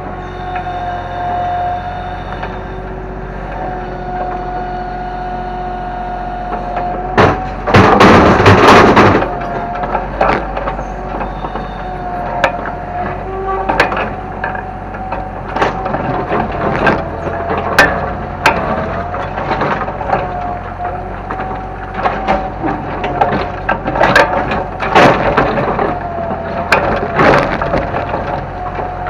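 Kobelco excavator running with a steady whine while it tears down a house: repeated cracking and knocking of breaking wood and debris, with one loud crash lasting about two seconds roughly eight seconds in.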